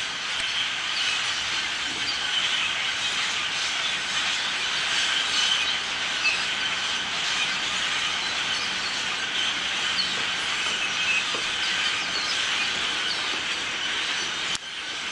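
A huge flock of small black migrating birds chirping in the trees: a dense, steady chorus of many overlapping chirps.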